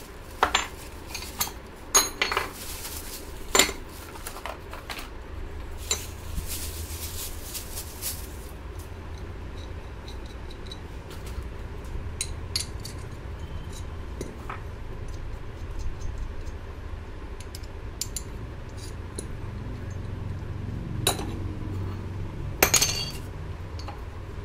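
Metal parts of a sewing-machine knee-lifter set clinking and knocking as they are unwrapped and handled, with a few sharp knocks, the loudest near the end. Plastic wrapping crinkles for a couple of seconds about six seconds in.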